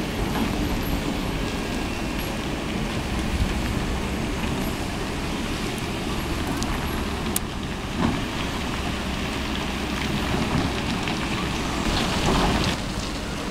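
Kobelco crawler excavator's diesel engine running steadily as it digs, with gritty scraping of sand and stones around the bucket. The noise grows louder for a moment near the end.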